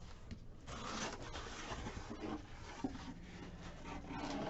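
Cardboard packaging being handled, rubbing and scraping, with small irregular knocks and clicks.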